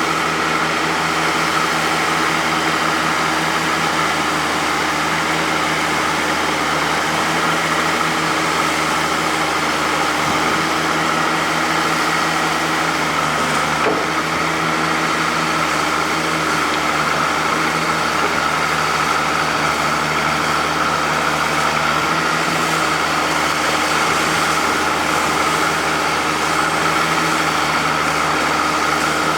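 Oliver 88 tractor engine running steadily at a constant speed, an even engine note with no revving.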